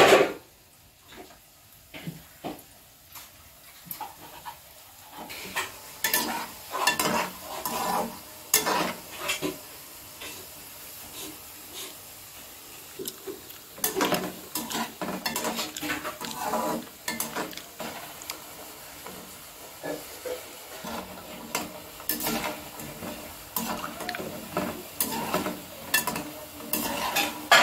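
Mathri deep-frying in hot oil in an aluminium kadhai, sizzling, while a slotted spoon stirs and turns them, scraping and knocking against the pan again and again.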